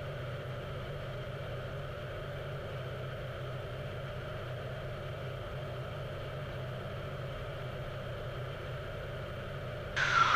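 Single-engine Cessna Skylane's piston engine and propeller droning steadily in flight, heard in the cockpit audio. Right at the end a short burst of radio noise begins.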